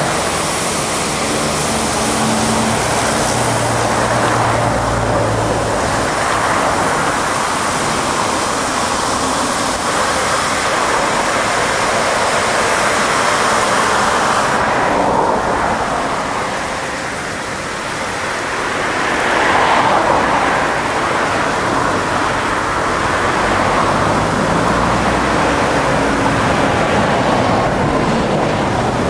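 Aquarama Stargate S111 gantry car wash spraying a car with high-pressure water jets: a loud, steady rushing hiss with a faint low machine hum underneath. About halfway through the hiss loses its highest part, then the level dips briefly and swells again.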